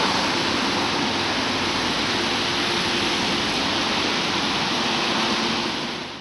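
Steady hiss of car tyres on a wet road as traffic passes; it fades out near the end.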